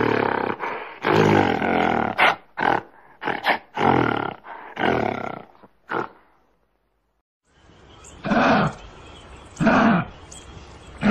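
Animal calls: a fast run of loud, harsh calls, a second of silence, then a different series of calls repeating about every second and a half.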